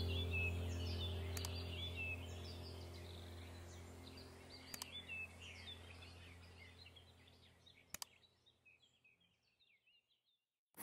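Ambient background track of sustained low tones with birds chirping over it, fading out to near silence. A few faint clicks come through as it fades.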